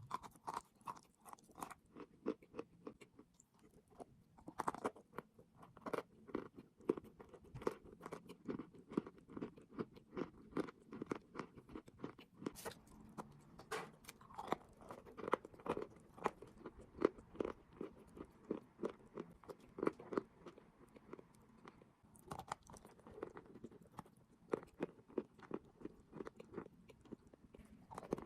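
Close-up chewing of chalk and clay, a dense run of crisp little crunches as the pieces are ground between the teeth.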